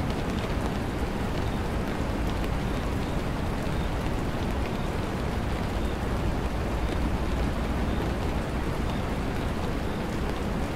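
A steady, even rushing noise, heaviest in the low end, with faint scattered ticks: a background ambience bed under the roleplay audio.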